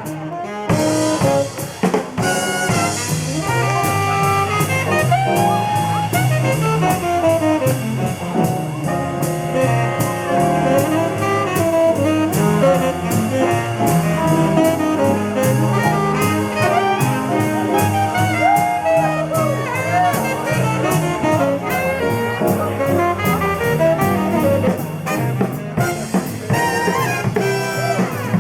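Jazz music with saxophone and brass over a drum kit keeping a steady beat.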